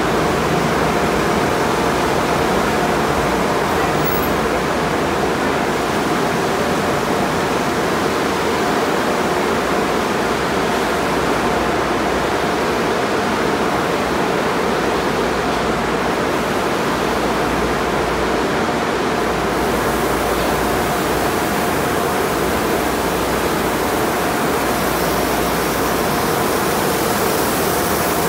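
Car wash tunnel sounds: a steady rush of water sprays and running wash equipment, with faint steady hums underneath. The hiss brightens near the end, where water pours down in a waterfall curtain.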